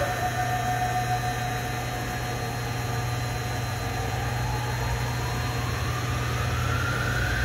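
Hardinge HLV-H-EM lathe spindle running and speeding up on its variable-speed drive: a thin whine holds steady, then rises in pitch from about halfway through as the speed is turned up toward 3,000 rpm. Underneath is the steady hum of the rotary three-phase converter that powers it.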